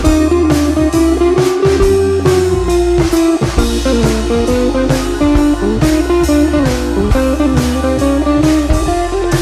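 Background music: a guitar playing a bending melody over a steady drum beat.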